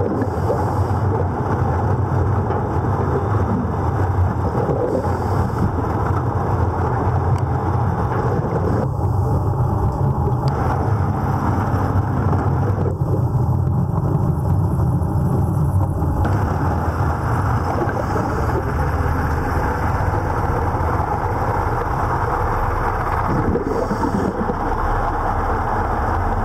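Underwater noise beside a ship's hull, heard through an underwater camera: a loud, steady low rumble with hiss. The hiss drops away twice, for a second and a half and then about three seconds, leaving a faint steady hum.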